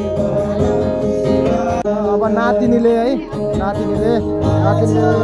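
Music with guitar and a singing voice.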